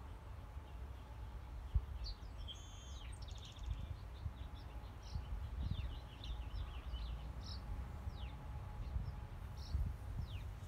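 Birds chirping and calling in short quick notes and downward-sweeping whistles, starting about two seconds in, over a steady low rumble.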